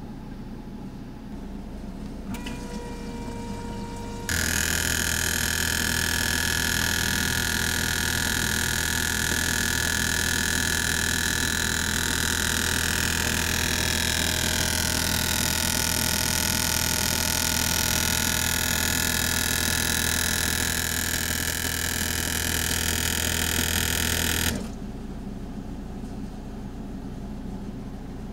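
Fuel injector test bench running a flow test on Bosch 0280158116 injectors: a loud, steady buzz and hiss of the pump and injectors spraying test fluid into the graduated cylinders. It starts suddenly about four seconds in and cuts off about four seconds before the end, leaving a lower steady hum.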